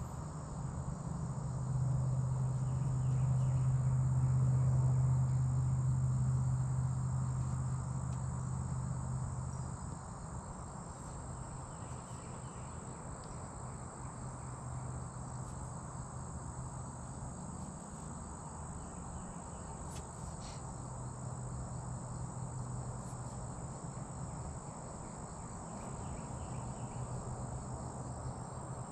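Steady high-pitched chorus of insects chirring, running under everything. A low droning hum rises over the first couple of seconds, is the loudest sound for several seconds, and fades out about ten seconds in.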